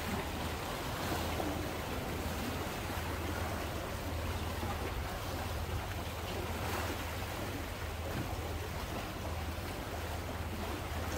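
Calm sea washing gently against shoreline rocks: a steady, even wash of water, with a constant low hum underneath.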